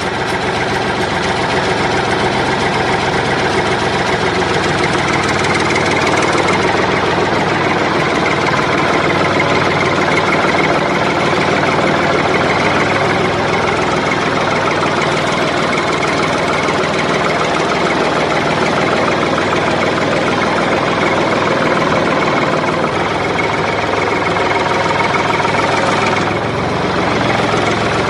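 Tractor engine running steadily at idle, with a brief dip in level about 26 seconds in.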